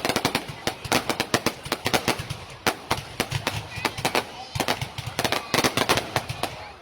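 Fireworks going off in quick, irregular succession: a dense run of sharp bangs and crackles, several a second, with a brief lull a little past halfway.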